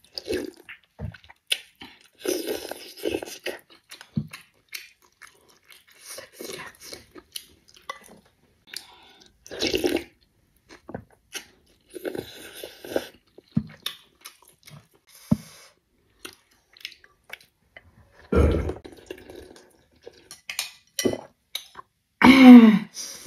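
Slurping noodles and broth from a spoon and chewing, in short separate bursts every few seconds, with one heavier low thump about three-quarters of the way through.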